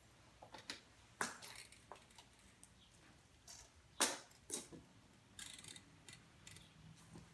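Manual wheelchair being rolled and positioned, with a few faint, sharp clicks and knocks, the loudest about four seconds in, and a short rustle about halfway through.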